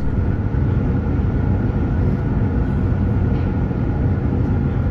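Steady rumble inside an electric multiple-unit commuter train car running at speed, with a faint steady whine above it.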